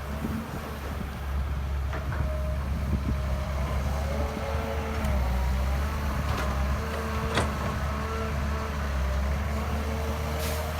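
Excavator's diesel engine running steadily with a low rumble while it works, with faint whining tones and a few short, sharp clanks, the loudest about seven seconds in.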